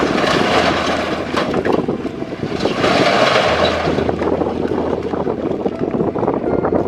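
A load of large stones sliding and clattering out of a tipping dump truck bed onto a rock pile, in heavy surges, with an engine running steadily underneath.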